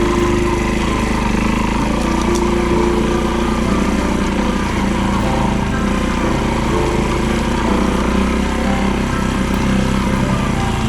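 A vehicle engine running steadily, with a continuous pitched drone over a wash of noise.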